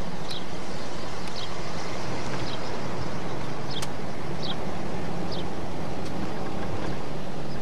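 Car driving, heard from inside the cabin: a steady hum of engine and road noise, with faint short high chirps every half second to a second.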